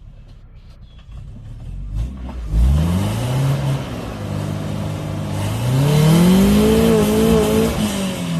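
Suzuki Samurai's four-cylinder engine running low at first, then revving up sharply about two and a half seconds in and pulling under load, rising again in pitch to a peak before easing off near the end.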